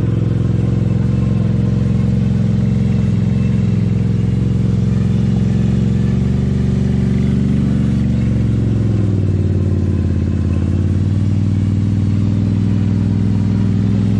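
Quad bike (ATV) engine running steadily at low revs, its pitch dipping a little about nine seconds in.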